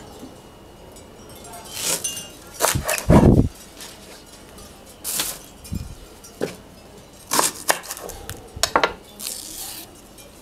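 Kitchen handling sounds: a knife knocking on a cutting board and utensils clinking, irregular separate knocks with a heavier thump about three seconds in.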